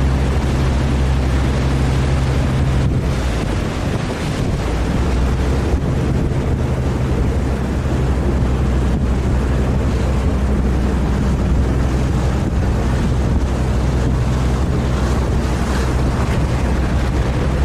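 A boat's engine running with a steady low hum, under wind buffeting the microphone and the rush of water.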